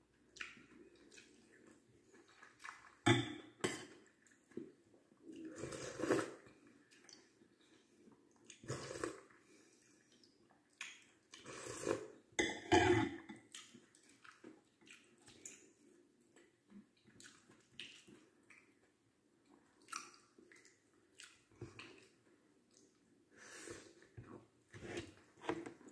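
Close-miked eating sounds: chewing a mouthful of cabbage, carrot and rice, with irregular wet mouth noises and louder clusters every few seconds.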